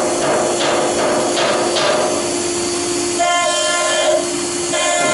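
Spindle of a vertical stone CNC router cutting marble: a steady hum with hissy surges as the bit works the stone, then a shrill whine with several overtones that sets in about three seconds in, drops out briefly and comes back near the end.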